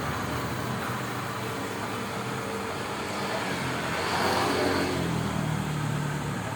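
Steady background noise with a low hum, swelling louder for about a second around four seconds in, like a passing vehicle.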